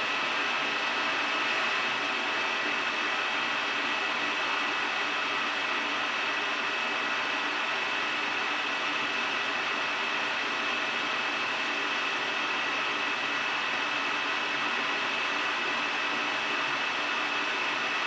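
Metal lathe running under a steady internal boring cut, a carbide-insert boring bar taking a 0.075 in (1.9 mm) cut inside a tube. The sound is an even hiss with a steady high-pitched whine.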